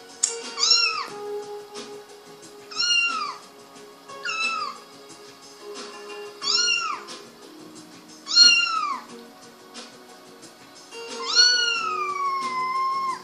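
Kitten meowing: six high meows a couple of seconds apart, each falling in pitch at its end, the last one drawn out and sliding down.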